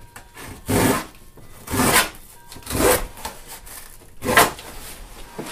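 Knife cutting through a cardboard shipping box: four sawing strokes about a second apart.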